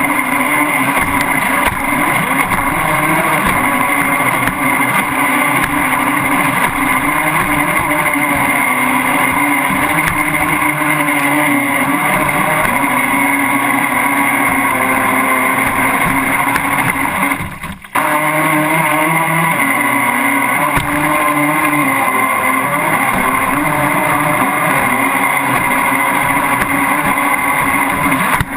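RC speed boat's motor running at speed, a steady whine heard close up from a camera on the hull, with water rushing and splashing past. The motor sound dips briefly about two-thirds of the way through, then picks up again.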